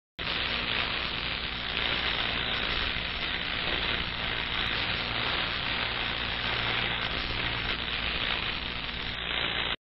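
Steady sizzling, crackling hiss of a burning spark, a sound effect for the spark travelling along the logo. It cuts off suddenly just before the end.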